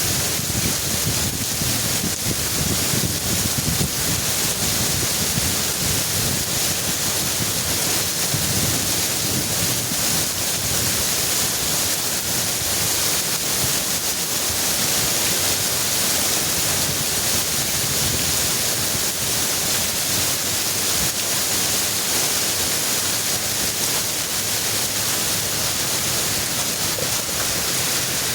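Heavy rain pouring down steadily, with strong wind gusting on the microphone as low rumbles, mostly in the first half.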